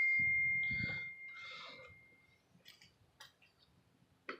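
A clear single ringing tone dying away over the first two seconds, followed by a few faint clicks and taps.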